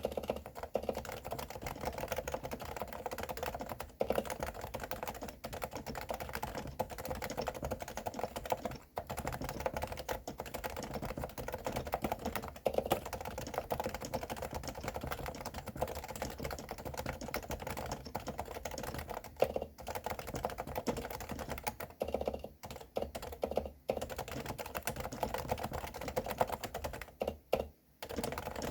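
Fast, continuous typing on a Realforce R2 Silenced keyboard with 45 g Topre electrostatic-capacitive switches, keystrokes muted by the silencing dampers. The typing pauses briefly a few times near the end.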